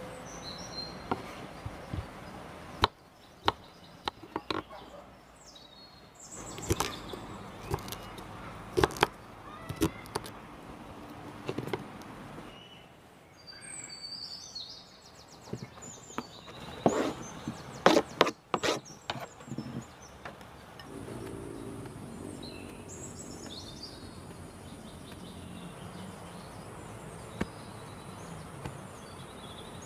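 Irregular sharp knocks, snaps and taps through the first two-thirds, heaviest a little past the middle, with birds chirping. From about two-thirds in the knocks stop and a steady high buzz, like insects, carries on.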